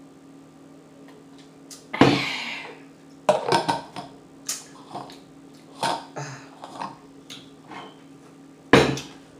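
Close-miked eating sounds: wet mouth smacks and clicks while chewing, in a loose irregular run. Two louder sudden sounds break in, one about two seconds in and one near the end.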